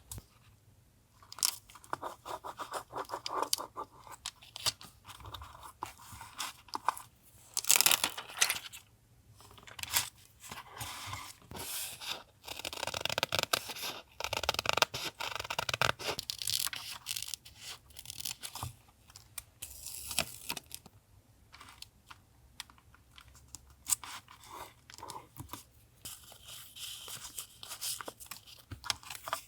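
Paper being torn and handled in short, irregular bursts of tearing, rustling and crinkling.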